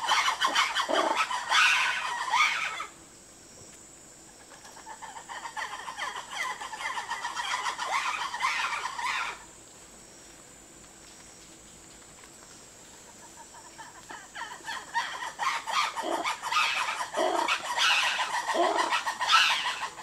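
Black-and-white ruffed lemurs calling in a loud chorus of rapid, pulsing cackles. The calling drops to a quieter stretch, falls almost away for a few seconds past the middle, and comes back loudly in the last five seconds.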